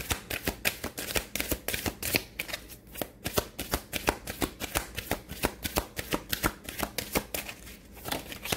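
A deck of Romance Angels oracle cards being shuffled by hand: a continuous run of crisp card slaps and riffles, about four or five a second.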